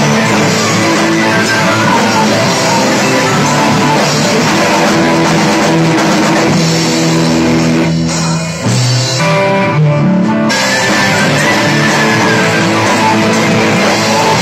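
Rock band playing: electric guitars, drum kit, bass and keyboard, with a short thinning-out of the band about eight seconds in before it comes back in full.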